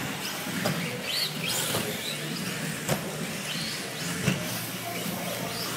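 Electric 1/10-scale 4WD RC buggy (Losi XXX-4) driving on a carpet track, its motor giving short rising whines as it accelerates over the tyre and track noise. There are two sharp knocks of the buggy striking the track over the ramps, about three seconds in and again a second and a half later.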